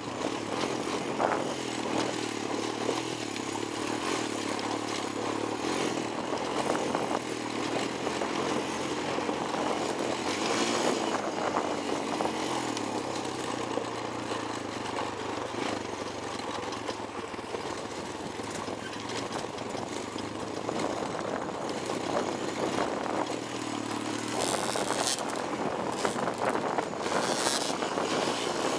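Honda 250EX ATV's single-cylinder four-stroke engine running under way over a rocky trail, its note rising and falling with the throttle.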